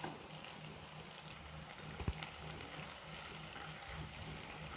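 Fresh fenugreek leaves frying in hot oil in a kadai, a faint crackle and sizzle, with a single soft knock about two seconds in.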